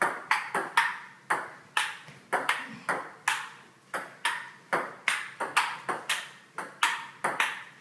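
Table tennis rally: the ball clicking sharply off the paddles and the table in a quick, steady back-and-forth, about three hits a second, with no break in the rally.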